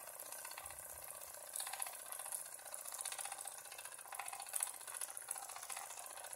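Wilesco D3 toy live steam engine running fast, its oscillating cylinder and flywheel making a rapid, even mechanical ticking.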